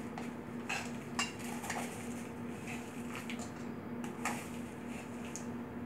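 Metal spoon scraping and clinking against a stainless steel mixing bowl in irregular strokes as dry flour ingredients are stirred together, over a faint steady low hum.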